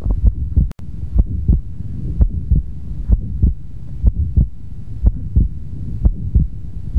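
Heart sounds with a fixed split of the second heart sound (S2): lub-dub beats about once a second, each second sound heard as two close clicks, over a low steady hum. A fixed split S2 is the classic sign of an atrial septal defect.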